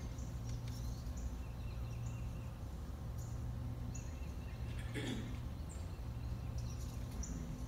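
Short, high bird chirps every second or so, from the play's lakeside nature ambience, over a steady low hum.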